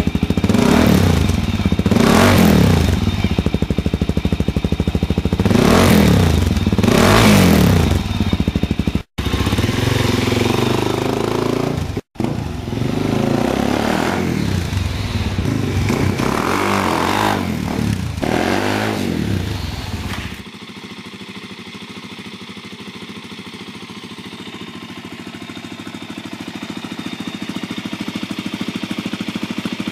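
Suzuki DR-Z400 single-cylinder four-stroke through an FMF PowerCore 4 slip-on: revved in about four sharp blips, then pulling away under throttle with rising revs. After a cut about two-thirds of the way in, a DR-Z400SM on an FMF Q4 silencer idles steadily.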